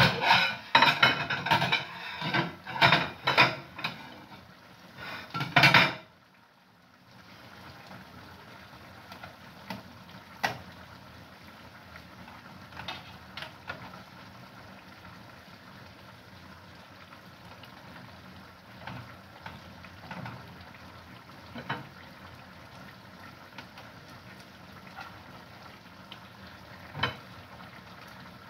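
Dishes and cutlery clattering during a meal: a fast run of loud knocks and clinks for about six seconds, then only a few scattered clinks over a low, steady background.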